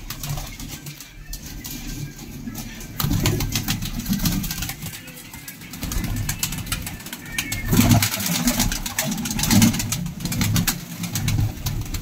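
A flock of domestic pigeons cooing in low, repeated phrases, with scattered sharp clicks among them and a flap of wings near the end.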